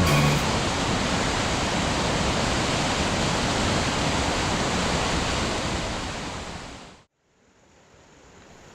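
Steady rush of flowing water. It fades out about seven seconds in, leaving a faint hiss.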